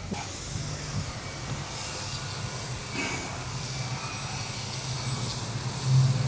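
Street traffic: a vehicle's engine running nearby as a steady low rumble, growing louder near the end.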